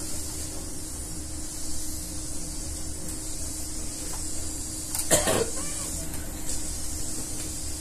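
Steady hiss and low hum from the endoscopy equipment, with one short cough from the patient about five seconds in.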